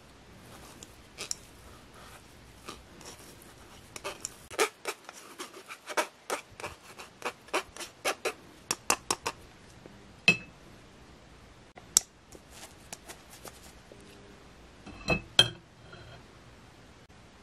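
Wooden spoon scraping and pressing hard-boiled egg through a stainless-steel mesh sieve over a stainless-steel bowl: a run of quick scrapes and clicks, about three a second, then a few separate sharp knocks near the end.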